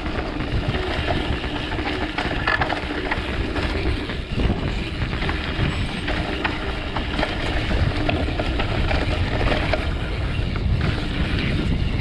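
Mountain bike descending a dry dirt trail at speed: tyres rolling and crunching over dirt and roots, with many small rattles and clicks from the bike and a steady low rumble.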